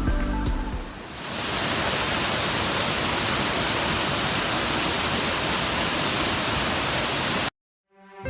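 Background music fading out in the first second, then the loud, steady rush of fast-flowing water, which cuts off abruptly near the end.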